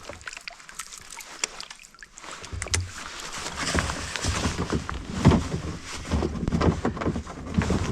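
Handling noises aboard a kayak: scattered knocks and rustling, with a low rumble setting in about two and a half seconds in.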